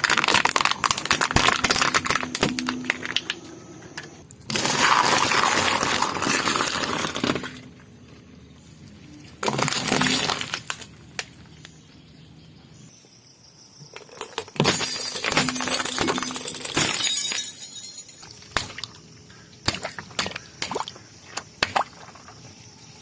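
Car tyres rolling over crunchy objects and crushing them. There are several loud bursts of crunching and crackling, each lasting one to three seconds, with scattered sharp cracks and snaps between them and near the end.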